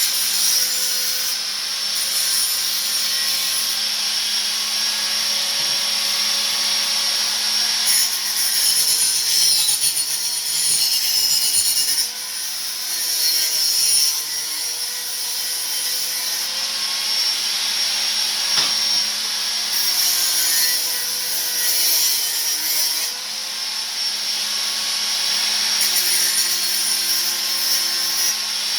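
Angle grinder cutting into steel exhaust pipe, a continuous hissing grind. The motor's pitch dips and recovers as the disc is pressed into the metal.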